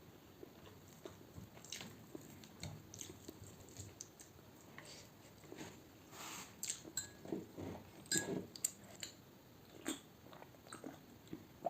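Faint chewing of a mouthful of rice and fish curry, with scattered small clicks and wet mouth noises that come thicker in the second half.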